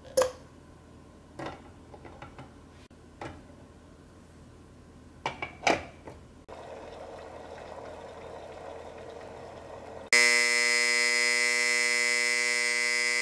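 Krups electric egg cooker's done-alarm: a very loud, steady buzzer tone starting about ten seconds in, signalling the eggs are cooked. Before it come a few plastic knocks and clicks as eggs and the dome lid are set on the cooker, then a steady hiss from the running cooker.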